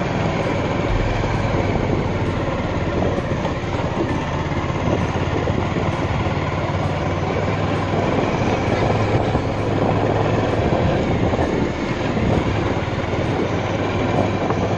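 Motorcycle riding along a road: a steady engine hum under continuous wind and road noise.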